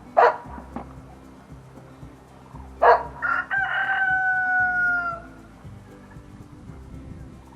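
A rooster crowing once, about three seconds in: one long call that falls slightly at the end. A short sharp knock sounds just after the start.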